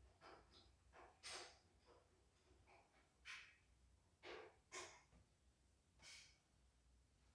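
Near silence broken by a few faint, short breaths, irregularly spaced.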